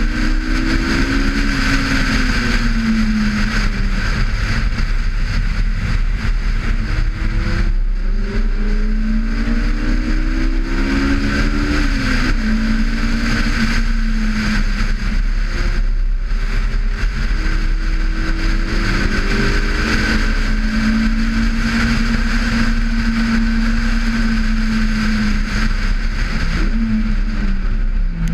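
Honda S2000's 2.0-litre four-cylinder engine being driven hard on track, its pitch climbing under acceleration and falling back several times as the driver shifts and lifts for corners, with a sharp drop about twelve seconds in. A constant rush of wind noise runs under the engine.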